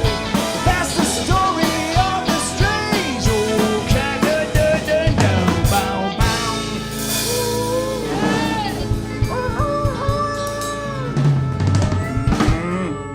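Live band music with a drum kit playing busy snare, rimshot and bass-drum hits for the first half. About seven seconds in, the drumming thins to a cymbal wash while long, bending melodic notes are held as the song winds down.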